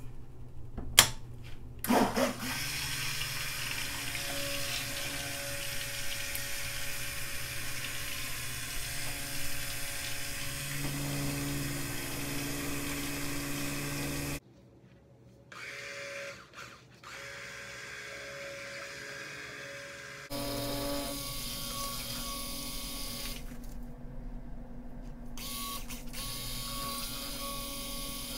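Handheld stick blender running in a bucket of soap oils and beer, a steady motor whine as it mixes the batter into an emulsion. It stops about halfway, runs in a few short bursts and at a lower level for a few seconds, then runs steadily again. A few sharp knocks sound near the start.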